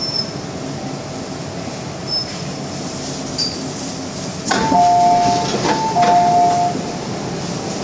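Hong Kong MTR M-Train door-opening chime: a clunk, then a two-note chime, high then low, sounding twice as the doors open. This plays over the steady running hum of the train at the platform.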